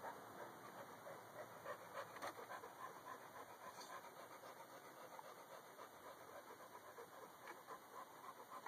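Bully-breed dog panting quickly with open mouth, faint rhythmic breaths at about three or four a second.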